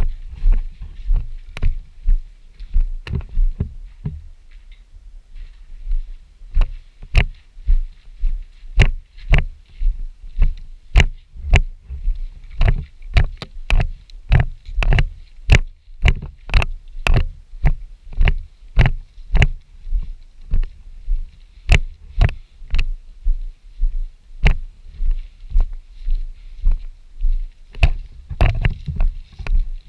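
Steady walking footsteps, about two steps a second, with a short pause about four seconds in.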